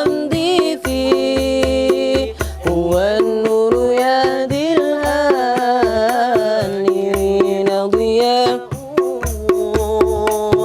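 Sholawat devotional song: a voice sings long, drawn-out melismatic notes with vibrato over steady drum beats and a low bass pulse.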